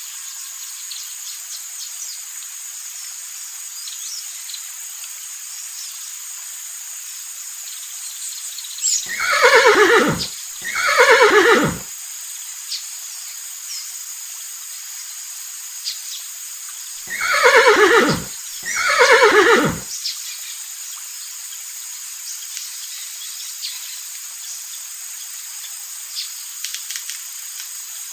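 A horse whinnying four times, in two pairs several seconds apart, each whinny about a second long and falling in pitch, over a steady hiss.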